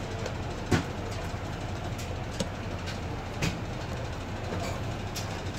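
Hard plastic sink-base parts knocking and clicking as they are handled and pressed into a rubber seal ring: a few sharp knocks, the loudest just under a second in, others around two and a half and three and a half seconds in, over a steady low rumble.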